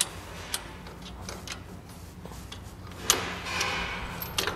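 Ratchet socket spanner clicking in short, irregular runs as a bolt on the trailer jockey wheel mounting bracket is turned, with a sharper metal clack about three seconds in.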